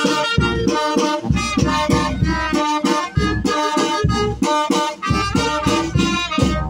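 Brass band playing lively dance music: trumpets and other wind instruments carry the tune over a sousaphone and bass drum keeping a steady beat.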